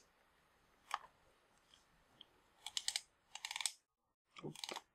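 Small sharp clicks and rattles of a Nikkor 50mm f/1.2 lens's metal parts being twisted and pressed together while the aperture lever is lined up with its fork. There is one click about a second in, two quick runs of clicking around three seconds, and another short run near the end.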